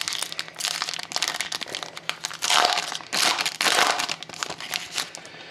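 Foil wrapper of a Panini Titanium hockey card pack being torn open and crinkled by hand, in bursts of rustling that are loudest around the middle and die down near the end.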